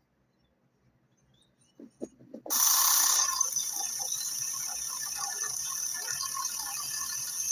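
A cheap Temu chainsaw starts suddenly about two and a half seconds in, after a few soft knocks, and runs steadily with a high whine over a hissing rush.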